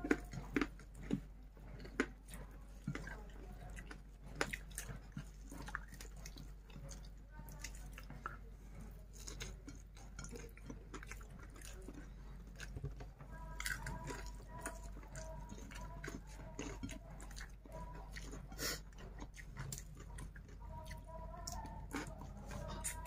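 A man eating rice, fried chicken and vegetables with his fingers: close, irregular chewing and mouth smacks, with scattered small clicks of fingers and food against the plate.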